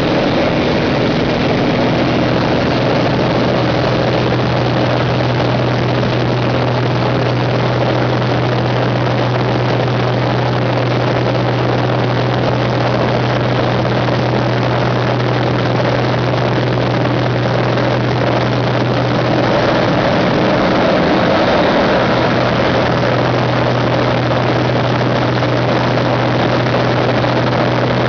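Pitts S-2B aerobatic biplane's six-cylinder Lycoming engine and propeller droning steadily in flight, heard from the cockpit along with wind rush. The drone's pitch wavers briefly about three-quarters of the way through.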